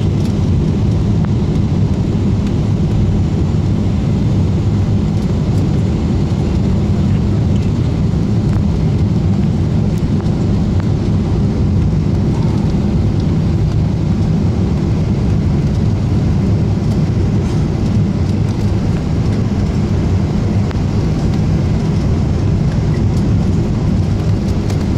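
Jet airliner engine and airflow noise heard inside the passenger cabin, a steady low rumble that holds even throughout.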